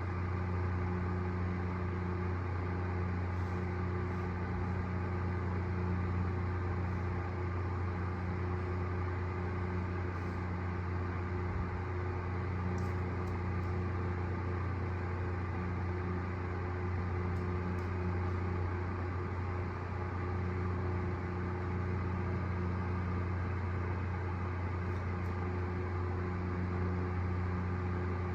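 A steady, unbroken low machine hum.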